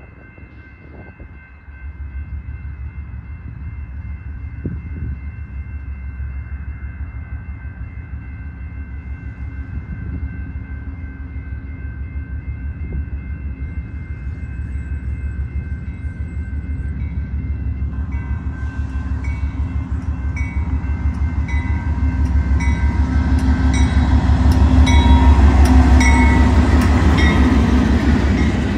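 A BNSF GE C44-9W diesel locomotive approaches and passes. The rumble of its 16-cylinder engine grows steadily louder and peaks near the end as the unit goes by, over a steady high whine. In the second half come regular clicks of the wheels over the rail joints, about one a second.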